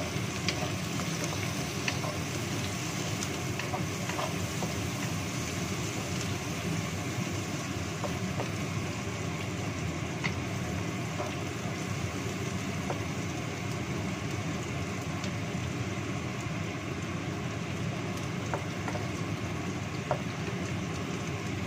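Food sizzling steadily as it is stir-fried in a nonstick wok on a gas stove, with a few light knocks of a wooden spatula against the pan.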